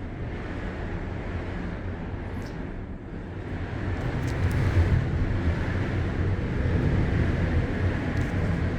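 Strong wind buffeting the microphone: a low, rumbling noise that gusts louder about four seconds in.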